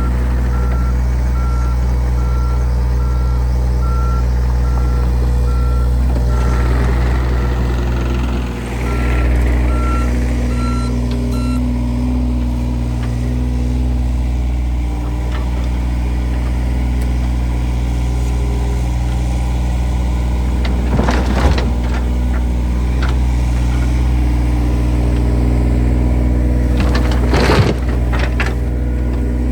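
A heavy machine's engine runs steadily, its backup alarm beeping evenly for roughly the first ten seconds before it stops. Two brief noisy bursts come later.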